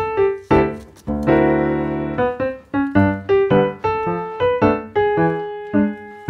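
Background piano music: single notes struck one after another, each fading away, with a fuller chord held for about a second a little after the start.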